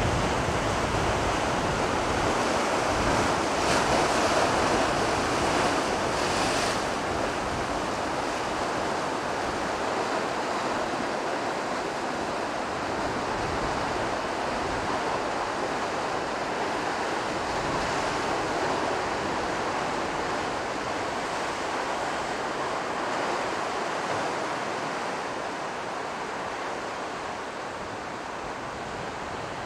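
Sea surf washing against a rocky shore, a steady rushing, with wind buffeting the microphone in the first several seconds.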